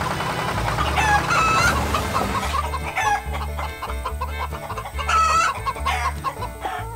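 Chickens clucking in a series of short calls, over background music with a steady low beat.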